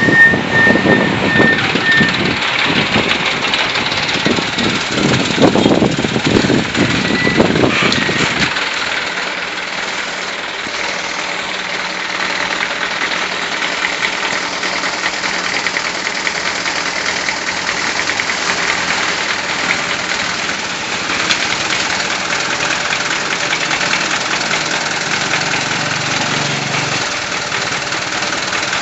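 A vehicle engine running, with a loud rumble for about the first eight seconds, then settling to a steadier, quieter hum.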